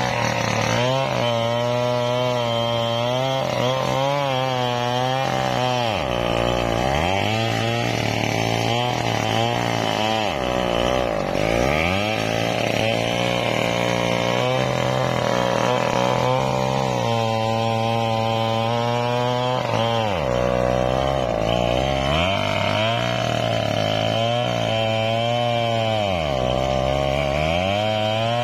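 Two-stroke chainsaw cutting through the base of a sonokeling (Indonesian rosewood) trunk, running at high revs. About four times the engine pitch drops sharply as the chain bogs down in the wood, then climbs back as it revs up again.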